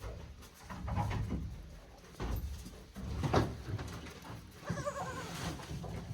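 A day-old goat kid bleating once, briefly, about five seconds in, amid low bumps and rustling of movement.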